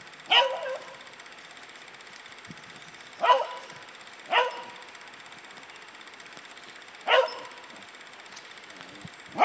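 A dog barking: short, single barks a few seconds apart, five in all, the last one right at the end.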